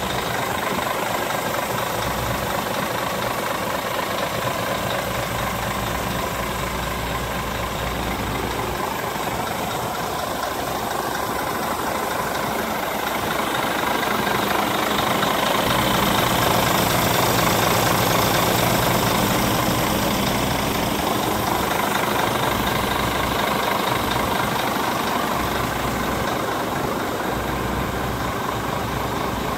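Scania R410's 13-litre inline-six diesel idling steadily, a little louder for several seconds midway.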